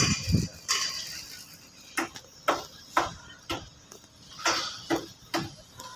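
Sharp knocks in an even beat of about two a second, four in a row, a short pause, then three more: hammer blows on the steel frame of a building under construction.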